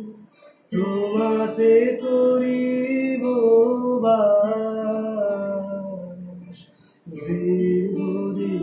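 A slow song sung in long held phrases to an acoustic guitar, with a short break about seven seconds in before the next line begins.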